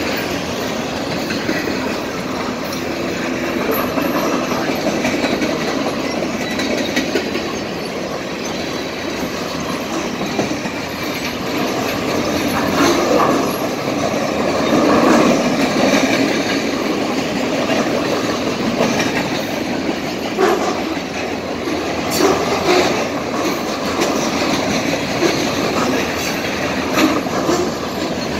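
Norfolk Southern freight train of loaded flatcars rolling past at close range: a steady rumble and rattle of steel wheels, with clacks over the rail joints that come sharper and more often toward the end.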